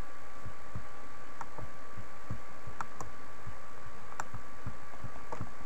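A few scattered computer mouse clicks, roughly one every second or so, over a steady electrical hum with a faint high tone and soft low thumps.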